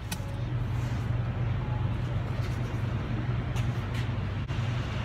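Steady low mechanical hum in a concrete parking garage, with a few faint clicks.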